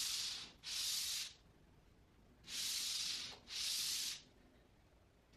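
Paper plates under bare feet sliding across a hardwood floor: soft scraping hisses in two pairs, one near the start and one about two and a half seconds in.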